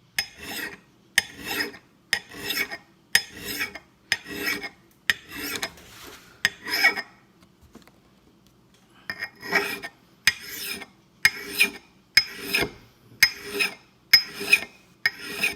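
Hand file rasping across the steel bit of an axe in steady push strokes, about one and a half a second, sharpening the edge. The strokes stop for about two seconds midway, then resume.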